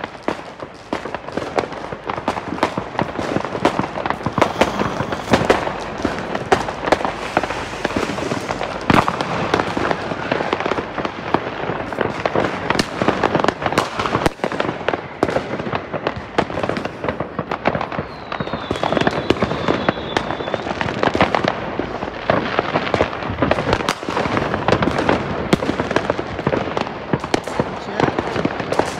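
Fireworks and firecrackers going off in rapid succession: a dense, continuous crackle of bangs and pops, with a thin high whistle for about two seconds past the middle.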